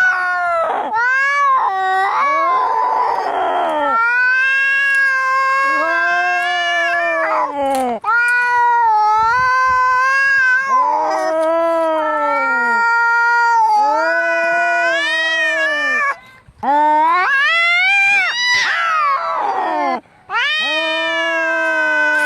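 Cats caterwauling as in a fight: long, wavering yowls, one after another almost without pause. A harsh, raspy snarl comes a few seconds in and again near the end.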